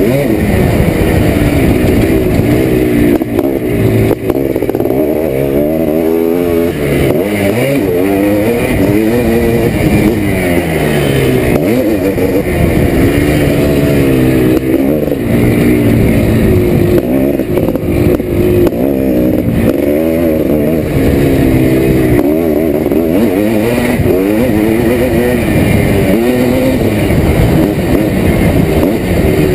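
1987 Yamaha YZ490's single-cylinder two-stroke engine, heard from on board while being ridden. The engine note rises and falls over and over as the throttle is opened and closed.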